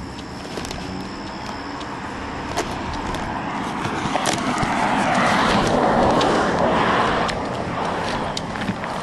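A car passing by: its road noise swells to a peak about five to seven seconds in, then fades away. Footsteps and small clicks sound throughout.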